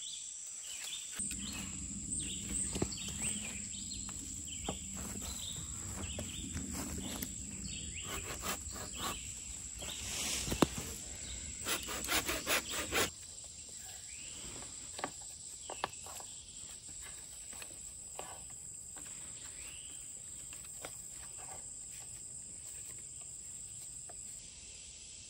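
Steady high-pitched insect chirring, with scattered knocks, scrapes and rustles from a hand saw and green sapling poles being worked during the first half; after about halfway only a few faint clicks are left over the insects.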